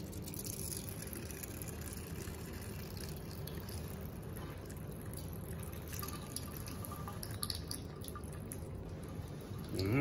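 A thin stream of water running from a tap into a ceramic sink, a steady trickle with faint drips.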